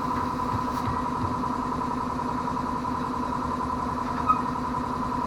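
A motor running steadily, giving an even machine hum with a fast regular pulse.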